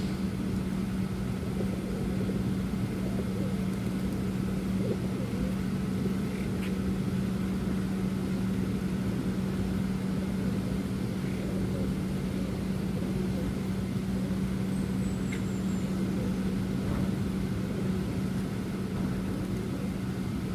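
A steady, unbroken motor hum with a low rumble beneath it, like a nearby engine running. A brief high chirp comes about two-thirds of the way through.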